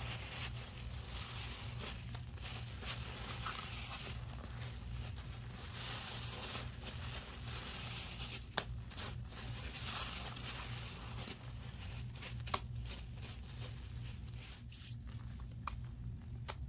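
A wet sponge squeezed and worked in a thick foam of Comet cleanser powder and liquid, giving a steady wet crackling and squishing of bursting bubbles, with two sharp clicks, one about halfway through and one later on. Near the end, gloved hands mix the foam directly.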